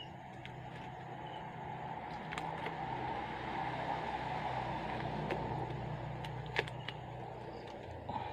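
A steady low rumble and hum that swells over a few seconds and eases off near the end, with a few light clicks as the metal flashlight parts are handled.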